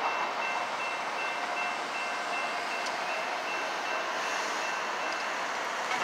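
Steady rolling noise of a CSX freight train's cars on the rails, with a faint high tone that pulses on and off regularly.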